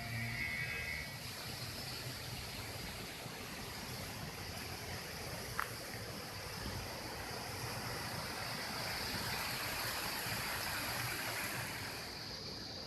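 Small headwater stream flowing steadily over rocks, with one short tick about halfway through. Guitar music fades out in the first second.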